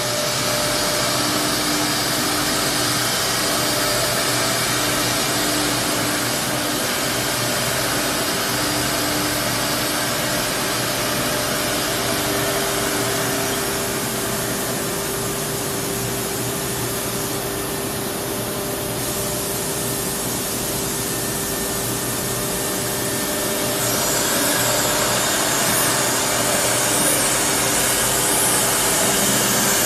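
Holztek HT-R3 three-head CNC nesting router running steadily, its spindles and dust extraction giving a continuous hiss with a few held tones as the gantry travels over the board.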